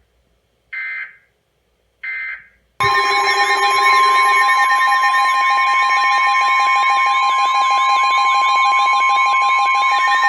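Emergency Alert System tones: two short screechy data bursts of the digital alert header, then a loud, steady attention-signal alarm of several tones held together, which starts about three seconds in.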